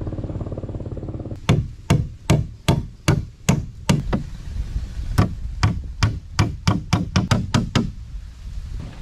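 Hammer blows on wood, nailing a plank into a wooden boat's frame: a run of sharp knocks about two or three a second, pausing briefly near the middle and coming faster near the end, over a steady low hum.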